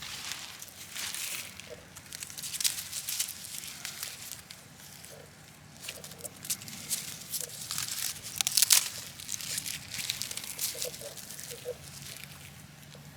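Dry, dead cornfield stalks and leaves crunching and crackling in irregular bursts, loudest a little past the middle.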